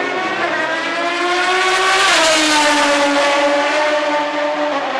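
Ferrari 550 Maranello GT race car's V12 engine at full throttle, its pitch climbing and then dropping suddenly about two seconds in as it shifts up, with another upshift near the end. It is loudest around the first shift.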